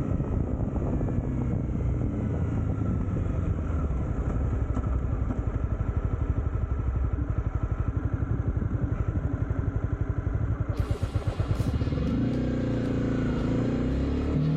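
Honda CB300R's single-cylinder engine running at low revs with a rapid, even pulsing, then rising in pitch as the bike accelerates near the end.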